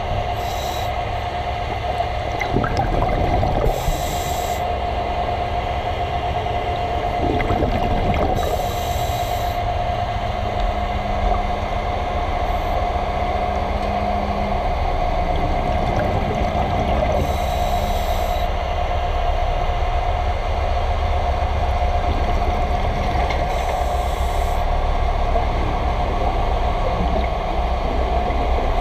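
Underwater noise picked up by a camera beside a ship's hull: a steady low rumble with a constant hum, broken every four to six seconds by a brief hiss.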